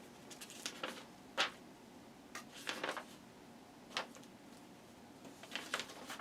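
Scattered light clicks and taps of small plastic model-kit parts and tools being handled on a work surface. There are about a dozen of them at uneven intervals, and the sharpest comes about a second and a half in.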